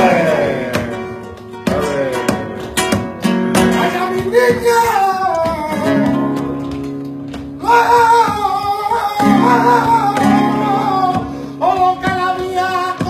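Flamenco bulerías: flamenco guitar strummed and picked, with a singer coming in about four seconds in and singing long, wavering lines over the guitar.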